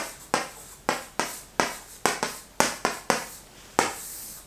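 Stick of chalk writing on a chalkboard: about a dozen quick, sharp taps and short scratches as characters are written, then one longer scrape near the end as a line is drawn under the word.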